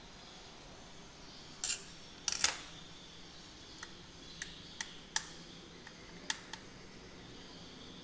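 A screwdriver clattering twice as it is set down on a tile floor, then a series of small sharp clicks as a 2.5-inch laptop hard drive's metal mounting bracket is worked off by hand.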